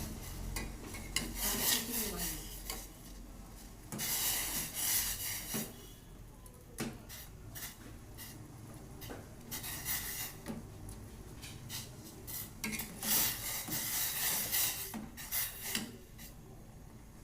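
A spoon scraping and stirring in a cooking pot in several short bouts, with light clinks of metal.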